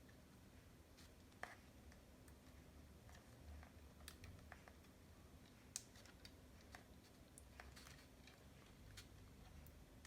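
Faint, scattered small clicks and taps from handling small electronic parts, such as a resistor's leads being fitted into place, over a low steady hum.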